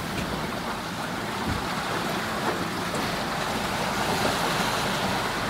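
Wind and choppy waves rushing and splashing past a sailboat's bow under sail, with wind on the microphone; a soft low knock about a second and a half in.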